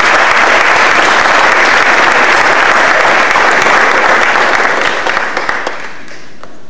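Audience applauding, a dense clatter of many hands that fades out near the end.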